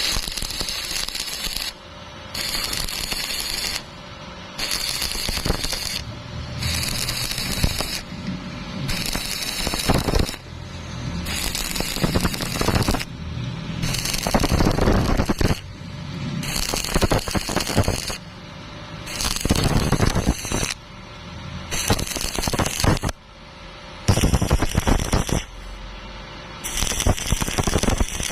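Stick-welding arc crackling and sizzling as an electrode burns, in spells of a second or two with brief breaks between them.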